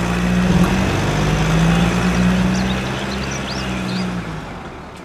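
Tanker truck's engine running with road noise, a steady low hum that fades out near the end.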